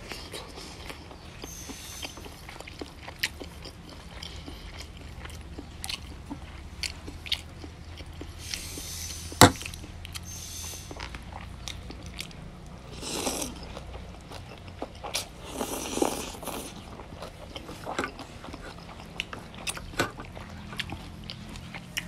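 Close-up eating sounds of goat meat and noodles: wet chewing and lip smacks with a few short slurps, and one sharp click about nine and a half seconds in.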